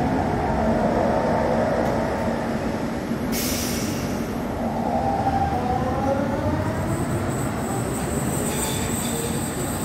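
Frankfurt Stadtbahn train running through an underground station, its motors whining in tones that fall and then rise again over a steady rumble. A short burst of hiss comes about three seconds in, and high squealing joins near the end.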